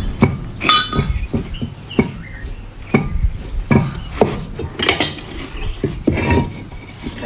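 Irregular metallic clinks and taps, a few of them ringing briefly, from steel gearbox parts being handled and fitted together while a center pivot irrigation gearbox is reassembled.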